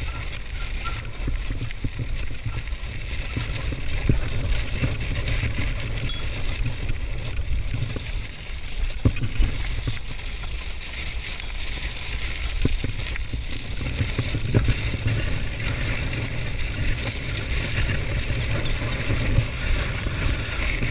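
Mountain bike riding in the rain: steady wind rumble on the microphone with a hiss of wet tyres and rain, and a few scattered knocks from the bike.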